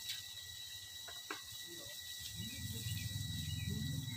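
Water spraying from a garden hose nozzle onto bedding soil, under a steady high insect buzz, with a couple of short clicks early and a low rumble that comes in about halfway through and grows louder.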